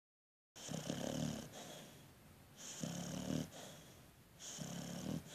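Snoring in a steady rhythm: three snores about two seconds apart, starting about half a second in, each a low rumble with a hissy wheeze on top.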